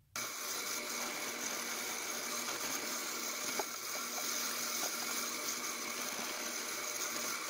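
Packard Precision 12-speed benchtop drill press running steadily, boring counterbore holes in oak blocks. A few faint ticks come about three and a half seconds in.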